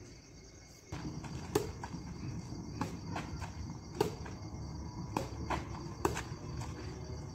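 Badminton rally: sharp taps of rackets hitting a shuttlecock about once a second, starting about a second in, over a steady chirring of crickets.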